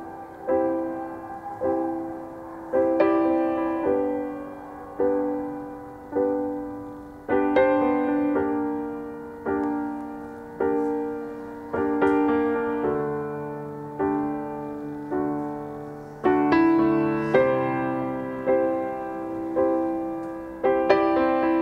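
Slow, gentle piano music: a note or chord struck about once a second and left to fade before the next.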